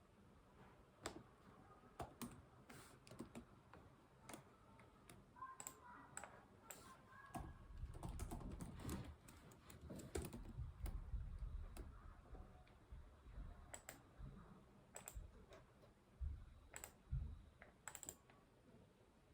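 Computer keyboard typing, faint, in irregular short runs of keystrokes with pauses between. A low rumble from something handled or shifted on the desk comes up in the middle and is the loudest part.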